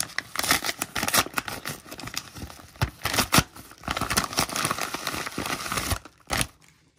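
Padded paper mailer being torn open and handled: dense crackling and crinkling of stiff paper with sharp tearing rips, stopping a little after six seconds in.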